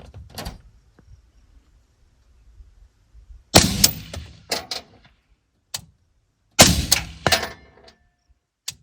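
Two shots from a suppressed 5.56 mm AR-15 rifle firing M855 ammunition, about three seconds apart. Each is a sharp crack that dies away over about a second, with smaller echoing cracks after it.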